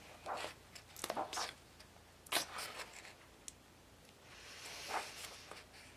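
Paper pages of a coloring book turned by hand: a series of short, soft swishes and rustles, about five or six of them.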